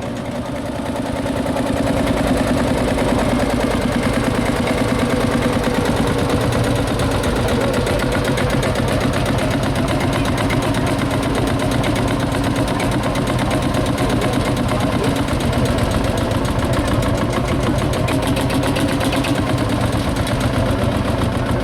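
Single-cylinder tractor engine running steadily with an even, rapid beat, picking up a little about a second and a half in.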